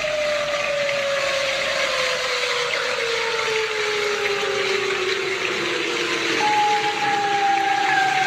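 Emergency warning siren wailing down: one tone slowly falls in pitch over about six seconds, then a new wail comes in higher and falls slowly again, over a steady hiss.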